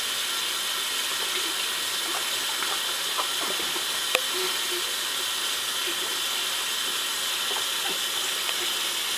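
Baby splashing and patting bubbly bath water in a plastic baby bathtub, over a steady hiss. One sharp knock about four seconds in.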